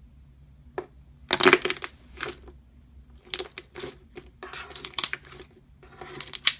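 Slime being pressed and squeezed by hand, in about six short crackling bursts.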